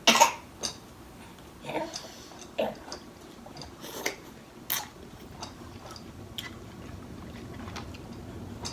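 Close-up eating sounds: chewing with wet lip smacks and short sharp mouth clicks every second or so.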